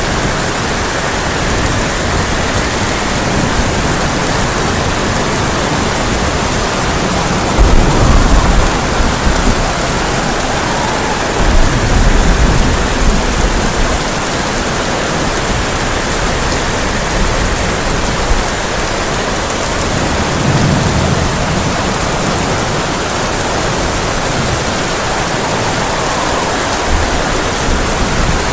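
Heavy rain drumming steadily on a tin roof, with low rolls of thunder rising about a third of the way in and again shortly after, and a fainter rumble later.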